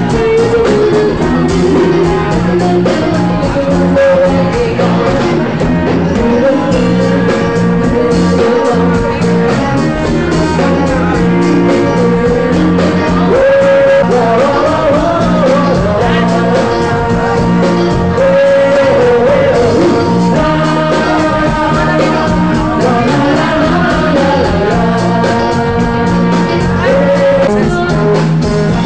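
Live rock band playing with a singer: drums, guitar and a sung melody, loud and with a steady beat.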